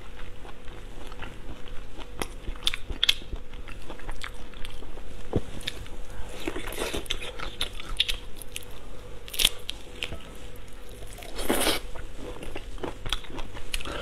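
Close-miked eating of shell-on crustaceans: chewing and crunching with many small wet clicks and smacks, and a longer, louder wet sucking noise about eleven and a half seconds in.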